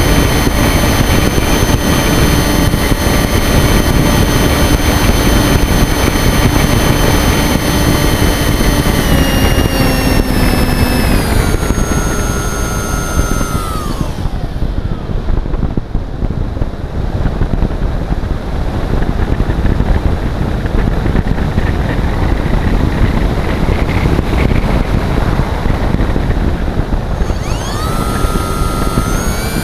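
Onboard sound of a model aeroplane in flight: the motor and propeller whine steadily over heavy wind rush on the microphone. About twelve seconds in, the whine slides down in pitch and dies away as power is cut, leaving only wind noise while it glides. It sweeps back up near the end as power comes on again.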